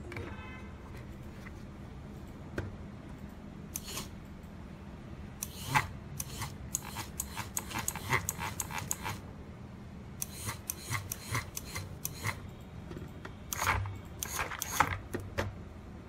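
Irregular clicks and scraping as hands grip a DC motor and its rubber wheel and work an RC transmitter's controls, in clusters from about four seconds in until near the end, over a steady low hum.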